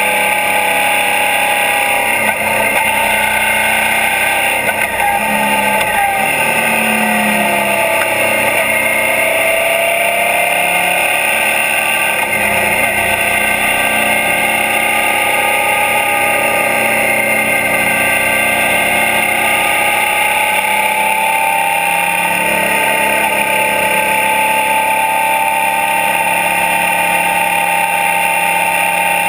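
Suzuki DL650 V-Strom's 645 cc V-twin engine running at road speed, heard close to the engine, with steady wind noise. The engine note drops about six seconds in and then climbs back over the following several seconds as the bike picks up speed again.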